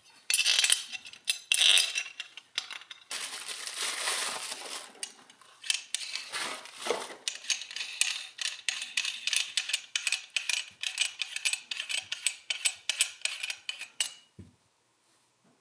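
Small metal tub-drain parts clinking and clicking as they are handled, with a few seconds of rustling in between, then a long run of rapid fine metallic clicks as a brass bushing is fitted onto the chrome drain body, stopping shortly before the end.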